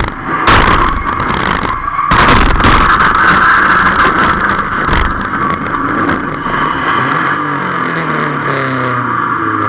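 1300cc stock car heard from inside its cockpit during a race, engine and drivetrain running loud and rattly. Two sharp bangs in the first couple of seconds, typical of car-to-car contact, and a duller thump midway. Near the end the engine note rises and falls.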